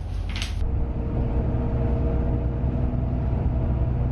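Inside a running airport limousine coach: a steady low engine and road rumble with a faint steady hum of several tones. A brief moment of street noise with a short hiss comes first.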